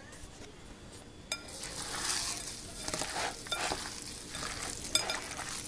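A hand kneading a raw chopped-chicken, breadcrumb and egg-substitute burger mixture in a bowl, making a squishy, squelching noise. It starts about a second in, just after a single click.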